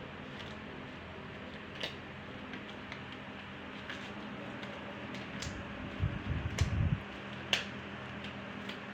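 Quiet room tone with a steady low hum, scattered light clicks, and a brief low rumbling bump about six to seven seconds in.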